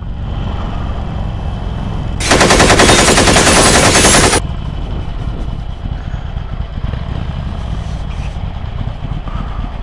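Harley-Davidson Sportster 883's air-cooled V-twin running under way with wind rush, the sound steady and low. About two seconds in it breaks into a loud, rapid train of exhaust pulses for about two seconds, then drops back to the steady run.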